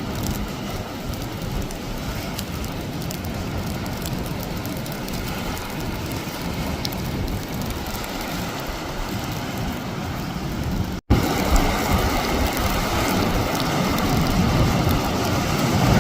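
Steady hiss of heavy storm rain. After a brief dropout about eleven seconds in, it comes back louder, with more low rumble.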